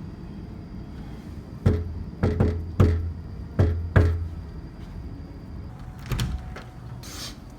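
Knocking on a door: five heavy knocks over about two and a half seconds, followed a couple of seconds later by a softer clunk.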